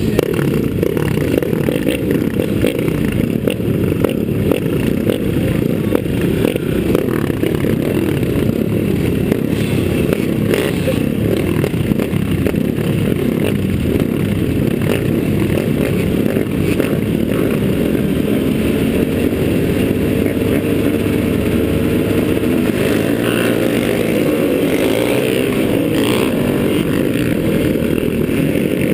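Dirt-track racing motorcycle engine running hard lap after lap, heard from a camera mounted on the bike, with a heavy low rumble of engine and wind. In the last third its pitch is heard rising and falling as the throttle is worked through the turns.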